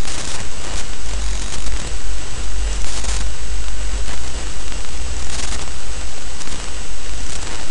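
Steady, loud recording hiss from the microphone, with a low rumble underneath and a few brief louder patches of hiss.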